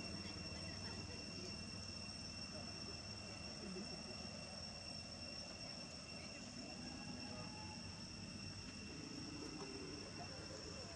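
Steady outdoor insect drone of crickets or cicadas: two unbroken high-pitched tones hold level throughout, faint, over a low background hiss.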